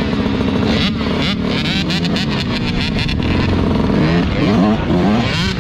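2024 Yamaha YZ125's 125 cc two-stroke single-cylinder engine revving, its pitch rising and falling with the throttle, with at least one other dirt bike revving along with it.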